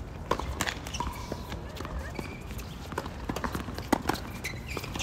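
Tennis doubles rally on a hard court: irregular sharp pops of rackets striking the ball and the ball bouncing, mixed with the players' quick footsteps and a couple of short shoe squeaks.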